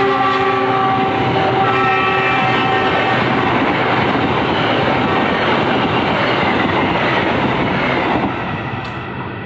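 Diesel locomotive horn sounding as the locomotive passes close by. Its pitch drops as it goes past and the horn dies away about three seconds in. The passenger coaches then roll past with a steady clatter of wheels on rail joints, easing off near the end.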